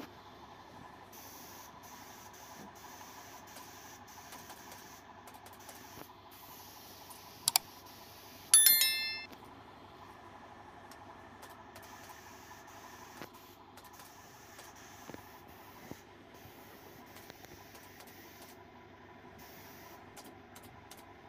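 Subscribe-button sound effect: a quick double mouse click, then a bell ding that rings briefly and fades, over a faint steady background hiss.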